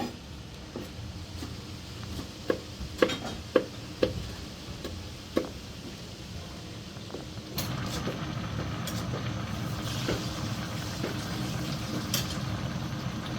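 Kitchen work: a handful of sharp knocks and clinks of utensils. About seven seconds in, a steady hum and hiss starts and runs under occasional further clicks.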